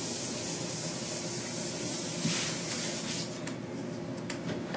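Steady outdoor hiss, with a brief swell about two seconds in and a few faint clicks near the end.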